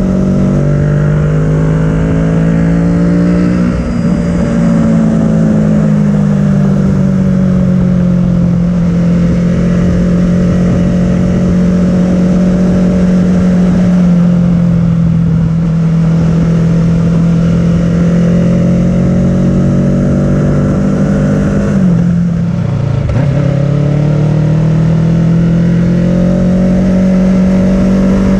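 Onboard sound of a 2017 Kawasaki Ninja 650's parallel-twin engine through an Arrow full-system exhaust, running at steady cruising throttle in fifth gear, with heavy wind rumble on the microphone. About 22 seconds in, the revs fall away briefly and then climb again as it is downshifted to third.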